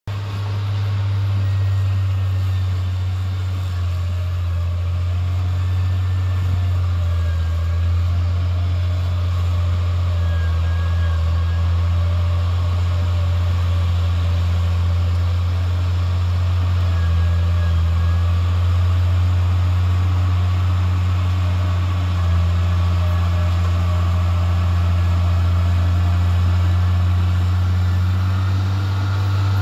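Heavy machinery diesel engine running steadily: a deep, even drone with slight swells and dips in load.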